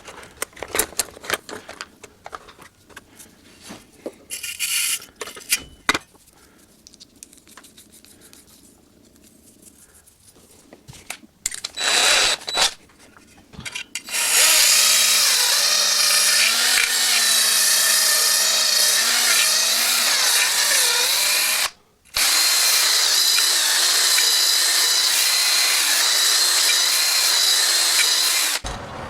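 Scattered clicks and taps of small metal parts being handled, then a handheld power tool runs steadily for about fifteen seconds, stopping briefly once partway, its pitch wavering as it works against the metal.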